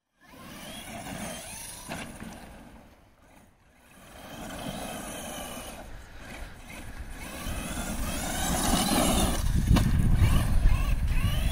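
FTX Carnage RC truck's electric motor whining, its pitch rising and falling with the throttle as it drives over dirt. It dies down briefly a few seconds in, then comes back louder as the truck speeds up.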